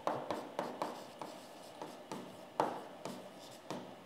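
Stylus writing on an interactive touchscreen display: a string of irregular short taps and scratchy strokes as a word is handwritten.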